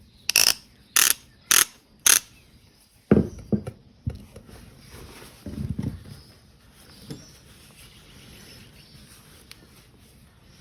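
Sidchrome ratchet handle, freshly freed up and greased, clicking in four short rasping bursts about half a second apart as it is worked back and forth. A few low knocks and a short rumble follow as the tool is handled and set down.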